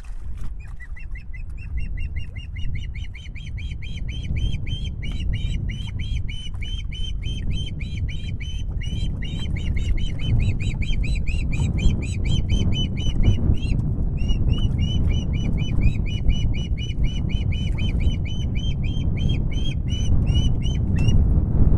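Young osprey calling a long, fast series of high chirps, about four a second, with a short break around the middle. A steady low rumble runs underneath.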